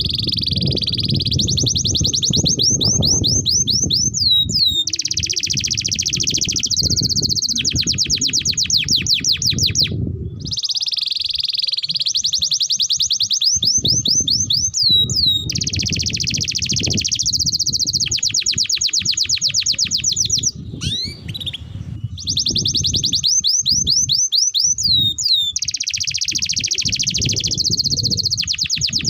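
Domestic canary singing a long continuous song of buzzy rolls and fast trills of sweeping notes. The same sequence of phrases comes round about every ten seconds, over a low background rumble.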